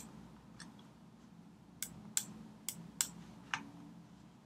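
Faint computer mouse clicks: about half a dozen short, sharp clicks spaced irregularly, mostly in the second half.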